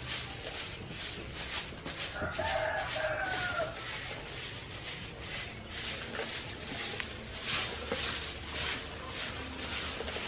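A broom sweeping over stony, leaf-strewn ground in a steady run of short scratchy strokes, a little under two a second. About two seconds in, a rooster crows once in the background for about a second and a half.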